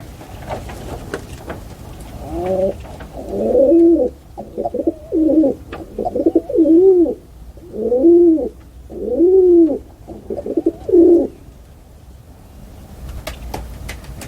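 Pigeon cooing: a run of low, rolling coos, each note rising and falling in pitch, for about nine seconds, then stopping. Faint clicks sound before and after the coos.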